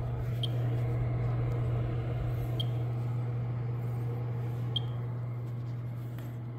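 Old Warm Morning gas space heater running, with a steady low hum from the fan at its base and a faint high tick about every two seconds.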